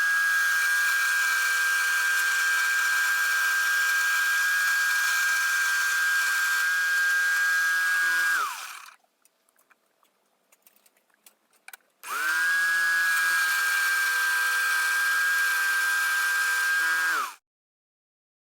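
Electric jigsaw mounted under a homemade jigsaw table, running at a steady speed with no change in pitch. It winds down after about eight seconds, starts again about 12 seconds in, and winds down once more a few seconds before the end. The maker is testing the table, whose blade vibration he found strong.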